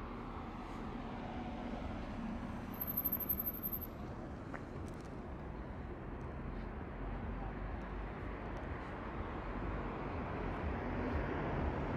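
Urban road traffic ambience: a steady, even hum of passing cars. A brief, very high-pitched pulsing tone sounds about three seconds in.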